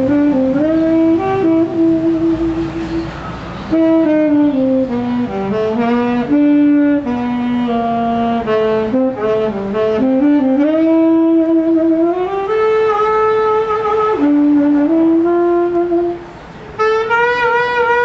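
Tenor saxophone played solo, a slow melody of held notes moving up and down in steps, with short pauses about three seconds in and again near the end.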